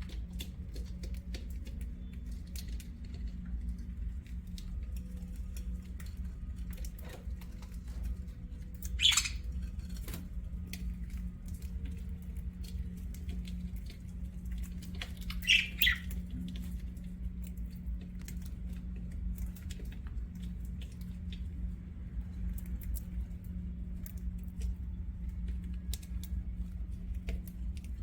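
Pet budgerigars: scattered faint ticks and taps throughout, with two loud, short, sharp calls about nine and fifteen seconds in, over a steady low hum.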